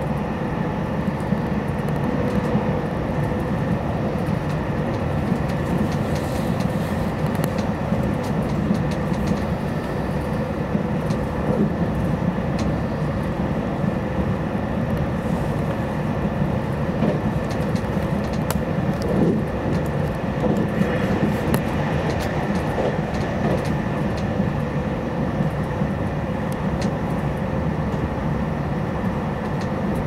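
Passenger-cabin noise of a JR Hokkaido 789 series electric limited express train running: a steady low rumble of the wheels on the rails with a faint steady hum above it.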